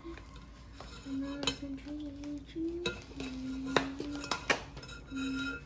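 Metal mesh strainer clinking against a glass fish bowl, a few sharp clinks with the loudest two about a second apart near the middle, while someone hums a few notes.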